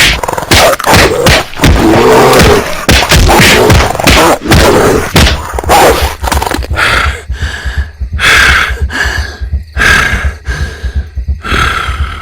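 Staged monster-fight sound effects: animal growls and roars mixed with heavy thuds and blows. About halfway through it thins to separate bursts roughly every second and a half over a low pulsing.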